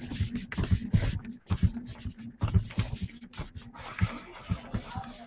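Footsteps and handling noise from a hand-held camera carried at a walk: a run of irregular soft knocks and scuffs over a steady hum.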